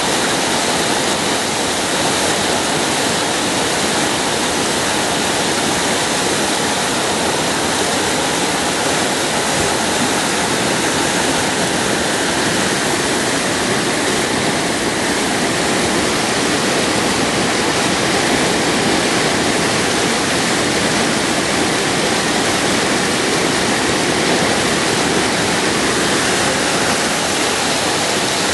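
Loud, steady rush of river water pouring through whitewater rapids, unchanging throughout.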